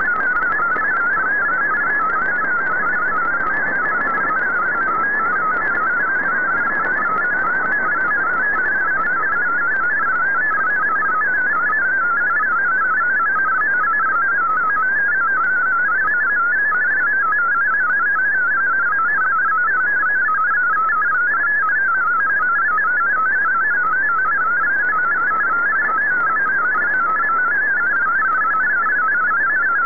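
MFSK32 digital text signal received over shortwave AM radio: a fast, warbling stream of high beeping tones hopping up and down within a narrow pitch band, over steady static hiss. The tones carry text that a decoder prints out as the transmission plays.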